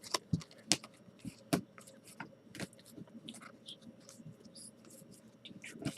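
Baseball trading cards being handled and flipped through one by one: soft, irregular clicks and scrapes of card stock, several a second.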